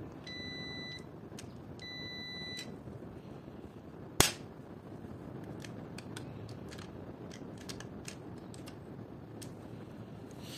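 UNI-T digital clamp meter's continuity buzzer beeping twice, each beep under a second long, as the probes bridge an input and output terminal of a switched-on four-pole RCCB: the pole conducts, a sign the RCCB is healthy. About four seconds in, a single sharp click as the RCCB's lever is snapped off, followed by faint light ticks of the probe tips on the terminal screws.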